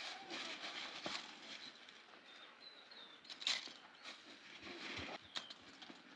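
Outdoor rural ambience: scattered light knocks and rustles, with a faint short high chirp about two and a half seconds in.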